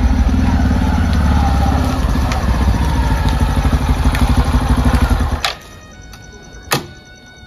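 An engine running steadily with an even low pulse, cut off suddenly about five seconds in. A click and a single thump follow.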